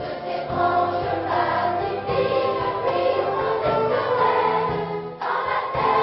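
Children's choir singing held, sustained notes in several parts with orchestra accompanying. About five seconds in the sound briefly breaks off, then a new chord comes in.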